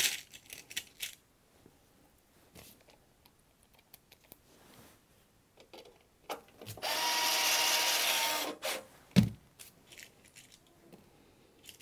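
Small handheld electric screwdriver running for about two seconds with a steady whine, driving a screw in lightly before final tightening. Around it come quiet clicks of bits and parts being handled, and a single thump shortly after the screwdriver stops.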